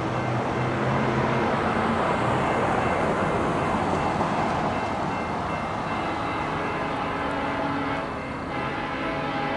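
Approaching diesel freight train: a low locomotive rumble fading under a steady wash of noise, with the horn's chord starting to come through faintly near the end.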